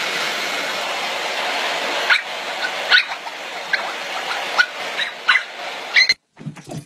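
Small long-haired dog giving about six short, high yaps, one every second or so, over a steady rushing noise that drops in level about two seconds in.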